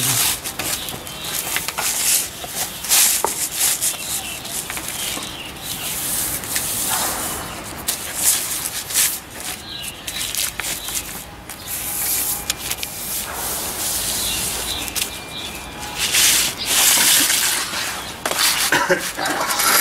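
Banner material rustling and rubbing in irregular bursts as a long strip of it is handled, folded and turned over.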